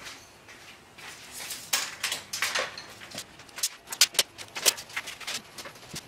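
Tape measure being pulled out and handled against a wooden cabinet: a run of sharp clicks and taps, the loudest about four seconds in.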